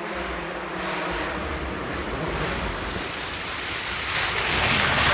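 Rally car on a gravel stage: a rushing hiss of tyres and thrown gravel over a low rumble, building to its loudest near the end.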